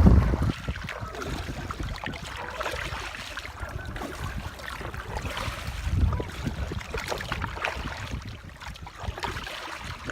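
Wind buffeting the microphone in uneven gusts, with a stronger gust about six seconds in, over light water lapping at a small boat.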